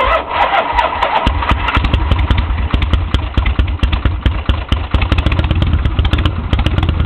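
1976 Harley-Davidson Electra Glide's Shovelhead V-twin turns over on the starter for about a second, then catches and keeps running steadily. It is being jump-started from a flat battery through clip-on jumper cables.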